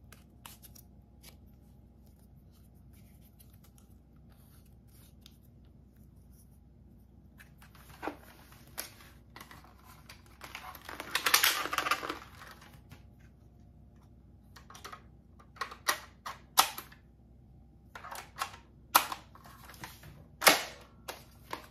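Plastic clicks and snaps from a 'Double Shot' break-action toy shotgun blaster being loaded and worked by hand. Foam shells go into the barrels and the hinged barrel is opened and closed. Near the middle a longer scraping rattle lasts about a second and a half, and sharp single clicks come every second or two after it.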